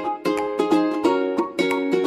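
Background music: plucked string notes in a steady rhythm, each note starting sharply and fading.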